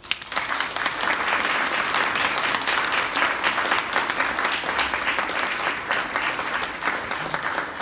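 Audience applauding at the end of a song: thick, steady clapping that starts suddenly and thins slightly near the end.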